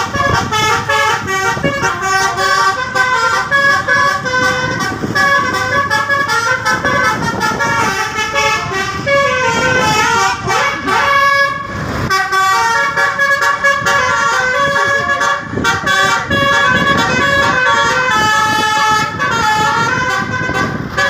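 Indonesian 'telolet' bus horn, a multi-tone musical air horn playing quick runs of stepped notes over and over, with vehicle rumble beneath. The notes break off briefly about halfway through.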